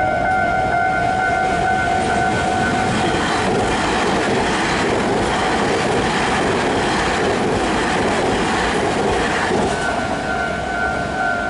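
Taiwan Railway local commuter electric train passing a level crossing at speed, its wheels rumbling and clattering on the rails from about three seconds in until about nine and a half seconds in. The crossing's electronic warning bell dings steadily throughout and is drowned out while the train goes by.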